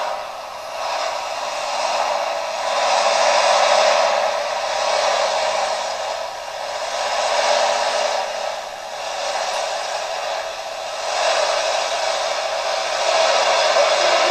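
Pulling tractor's engine running flat out under full load, a steady rushing noise that swells and eases every few seconds, with hardly any low end.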